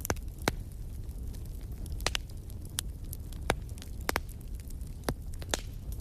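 Wood fire in a fireplace crackling, with about ten sharp, irregular pops and snaps over a low, steady rumble.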